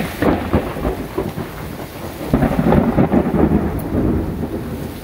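Thunder rumbling over steady heavy rain, swelling to its loudest from about two and a half seconds in.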